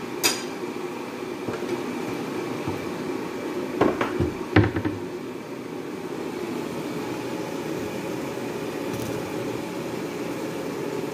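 A steady low hum, with a sharp click just after the start and two short knocks about four seconds in.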